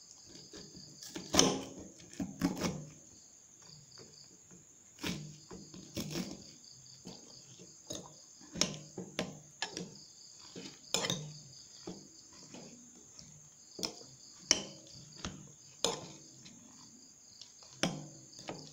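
Metal fork stirring instant noodles in a glass bowl, clinking and tapping against the glass at irregular moments about once a second. A steady high-pitched chirring runs underneath.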